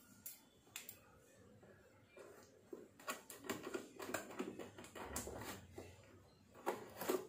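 Scissors cutting the seal along the top of a cardboard box: scattered snips and blades scraping on cardboard, sparse at first and busier in the second half, the loudest near the end.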